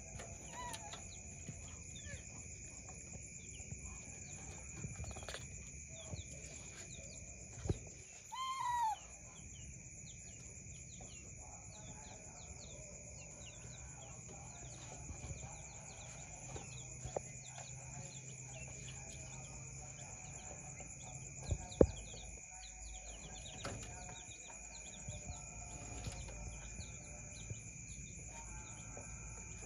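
Chicks peeping throughout as a steady run of short, high falling chirps. About eight seconds in there is a short pitched call that rises and falls, and about twenty-two seconds in a sharp knock, the loudest sound.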